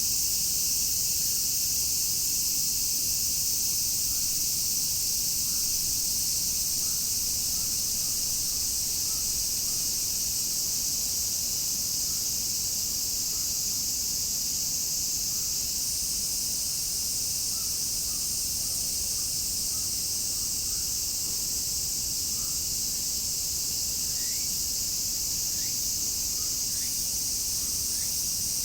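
A dense chorus of summer cicadas: a steady, high-pitched, hissing buzz. Faint short rising chirps come in a few times near the end.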